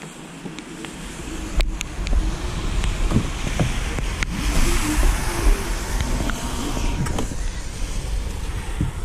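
Volvo XC40's power tailgate closing under rumbling wind and handling noise on the camera's microphone, with scattered clicks and knocks as someone moves around the car and climbs into the back seat.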